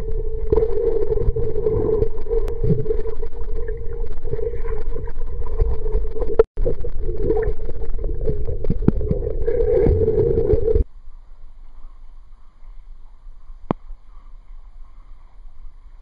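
Muffled underwater sound of a swimming pool: dense rumble and water movement over a steady hum. About eleven seconds in it cuts off suddenly to a much quieter faint hiss.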